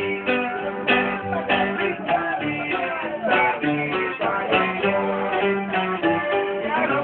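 Accordion and guitar playing live together: a sustained accordion melody over the guitar's plucked, rhythmic accompaniment.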